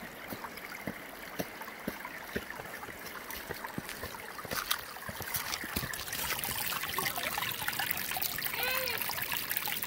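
Stream water cascading over a waterfall's rock slab, a steady rush with many close trickles and droplet splashes. From about seven seconds in, indistinct voices join it.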